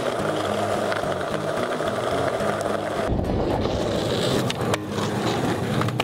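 Music with a bass line, then about three seconds in, a skateboard rolling on asphalt with a low rumble of its wheels and a few sharp clacks of the board.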